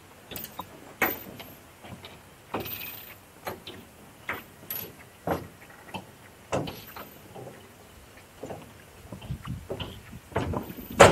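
Footsteps of a person walking along the railway track, an uneven series of knocks and crunches at walking pace, with one louder knock near the end.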